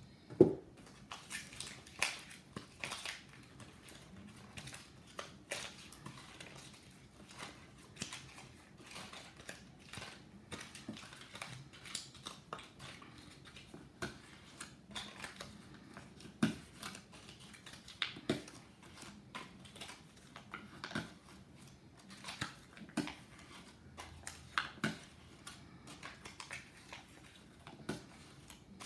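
Paper squares stacked on a spike rustling and crinkling as they are scrunched and fluffed by hand, with irregular small clicks and taps. A louder knock comes about half a second in.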